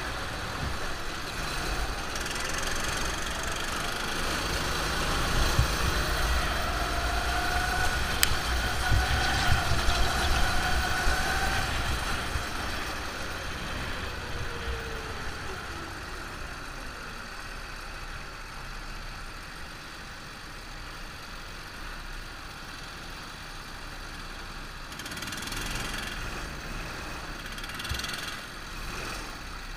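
Go-kart engines running on track, heard from onboard a kart, louder for the first twelve seconds or so with the engine note rising slightly, then dropping to a quieter, lower run as the karts slow down.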